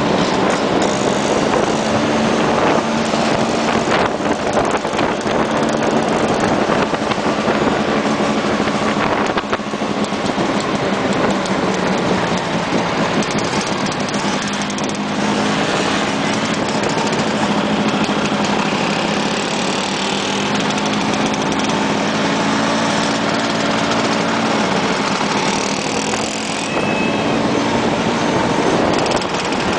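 Small scooter engines running steadily at cruising speed as a group of Vespa scooters rides in a line, with engine pitch shifting slowly as they speed up and ease off, over road and wind noise heard from one of the moving scooters.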